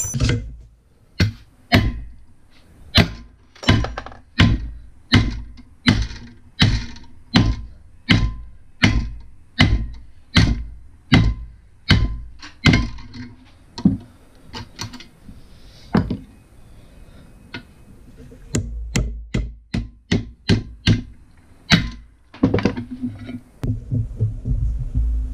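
Heavy hammer blows ringing on a steel suspension lower control arm clamped in a bench vise, driving at its worn rubber bushing (silentbloc). The strikes come evenly, about two a second, then turn irregular and spaced out, and a low steady rumble joins near the end.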